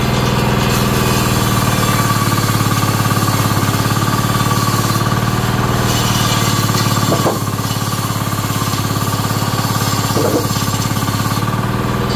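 Table saw running steadily while long wooden boards are ripped lengthwise through the blade. The sound drops slightly about seven seconds in.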